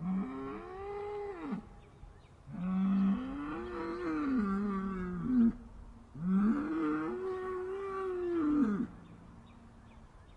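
Upset cows mooing: three long moos, each rising and then falling in pitch, the middle one the longest.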